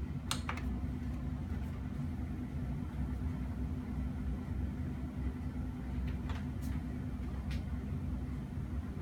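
Steady low electrical hum and faint hiss of VHS tape playback with no programme sound, broken by a few faint clicks: two near the start and a few more around six to seven and a half seconds in.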